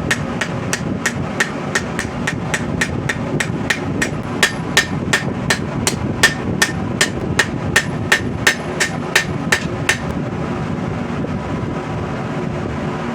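Blacksmith's hammer striking hot steel on an anvil at a steady rhythm of about three blows a second, forging a rebar sword blade; the blows stop about ten seconds in. A steady low background noise continues throughout.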